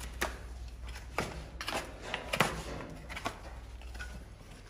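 Hoof knife paring the sole of a horse's hoof: short, sharp cutting strokes, about six of them, irregularly spaced.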